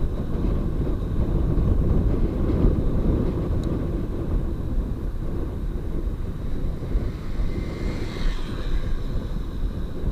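Steady low rumble of wind and road noise on the microphone of a moving camera, with a faint brief higher-pitched sound about eight seconds in.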